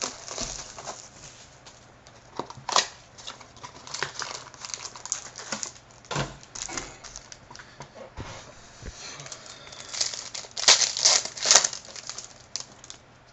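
Trading-card packs being opened by hand: wrapper packaging crinkling and tearing in irregular rustles, with a louder stretch of crinkling about ten seconds in.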